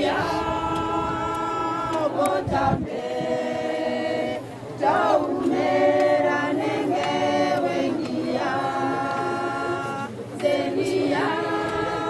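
A group of voices singing together without instruments, in long held phrases separated by short pauses for breath.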